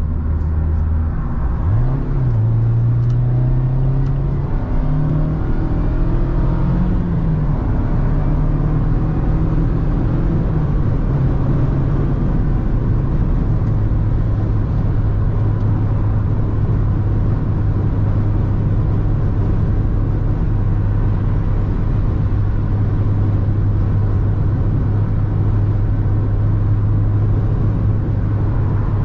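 Mazda MX-5's four-cylinder engine heard from inside the cabin, pulling hard as the car accelerates. Its pitch climbs and drops in steps through the first dozen seconds as it goes up through the gears, then settles into a steady hum at constant revs while cruising. Road and wind noise runs underneath throughout.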